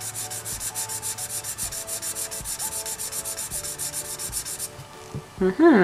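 Felt-tip of a Chameleon alcohol marker scratching across paper in rapid back-and-forth colouring strokes, a tip she finds a little dry. The strokes form an even, quick rhythm of about ten a second and stop about a second before the end.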